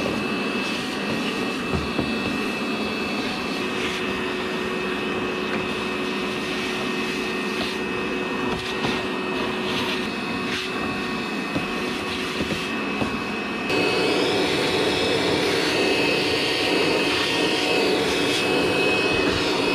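Portable wet/dry shop vacuum running steadily with a high whine, sucking up aluminum drilling chips. There are a few sharp clicks in the middle, and it gets louder about 14 seconds in.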